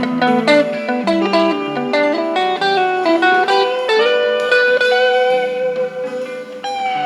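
Electric guitar, a Stratocaster-style guitar through a Crybaby wah and a Fender Blues Junior amp, playing a single-note lead over a recorded band backing. A note slides up about three seconds in and is held for a few seconds before the quick phrases resume.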